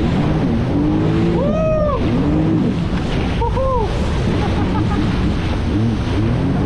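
Jet ski engine running at speed over choppy waves, its pitch wavering up and down as the hull rides the swell, with water spray hissing and wind buffeting the microphone. Twice, about a second and a half in and again near halfway, a brief whine rises and falls.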